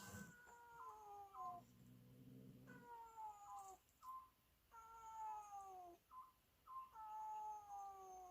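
A cat meowing four times in long, drawn-out calls that each slide down in pitch, with short chirps in between. A low buzz sounds briefly after the first call.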